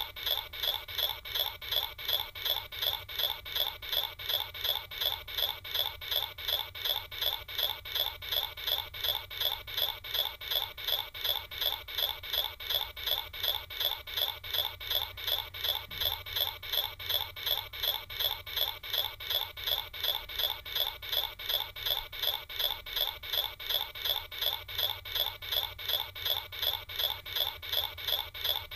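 A short electronic sound effect looped without a break, repeating evenly about three times a second, each repeat with bright, high, steady tones.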